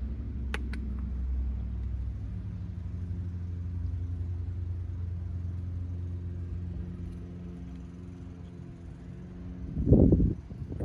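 A motor vehicle engine idling steadily as a low, even rumble. A couple of sharp clicks come just after the start, and a brief loud thump near the end.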